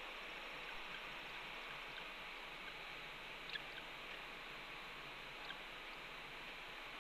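Steady hiss from a webcam microphone, with a few faint, short, high chirps, the clearest about halfway through and another near the end.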